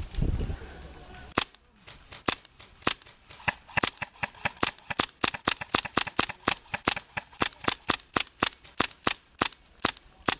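HPA-powered Tippmann M4 airsoft rifle firing a long string of rapid single shots, about four to five sharp cracks a second, starting about a second and a half in.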